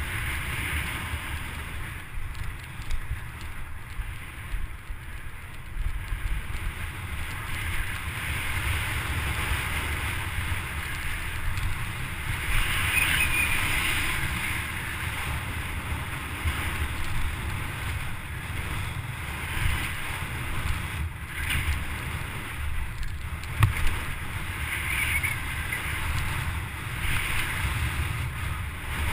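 Wind rumbling on a helmet-mounted camera's microphone as a mountain bike descends a dirt course, with tyre noise and scattered knocks and rattles from the bike over bumps.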